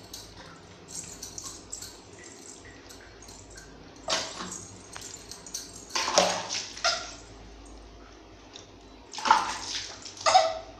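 Handfuls of water splashed over a baby during a bath, coming in several loud bursts a few seconds apart, with the baby crying.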